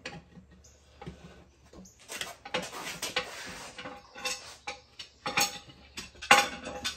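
Metal clanks and scrapes at a manual tire changer: the steel tire bar knocking against the machine and the wheel, and the rubber tire rubbing over the rim as it is worked loose. Two louder sharp knocks come near the end, the second ringing briefly.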